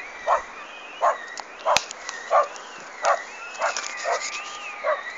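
A dog barking repeatedly, about eight barks at a steady pace, with a fainter tone sliding up and down behind it and a single sharp click near the middle.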